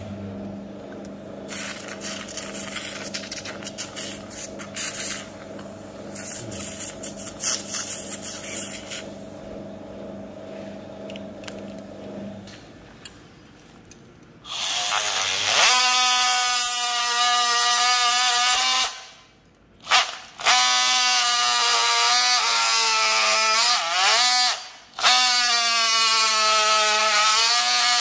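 Steady hum with intermittent hiss of surgical suction at first. From about halfway, a powered oscillating bone saw runs loudly as it cuts the greater trochanter of the femur, its whine dipping in pitch under load. The saw stops briefly twice.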